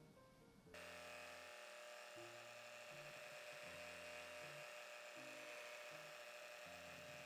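Electric hand mixer running on low speed, its beaters whipping egg-white meringue in a glass bowl. It is a steady, even whirr that starts under a second in. Low speed here refines the bubbles of a soft meringue.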